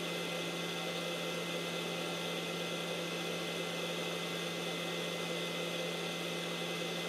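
Fan of a YiHua 853D hot air rework station running steadily, a low hum with an even airy hiss, blowing through the parked handpiece to cool the heater down after use.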